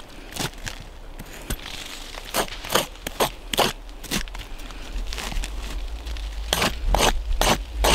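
Knife blade scraping across wood in repeated short strokes, a run of four about halfway through and a quicker series near the end.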